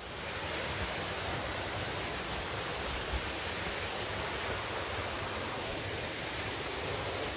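A 15-metre straight-drop waterfall, its falling water making a steady, even rushing noise that comes in just as the clip begins.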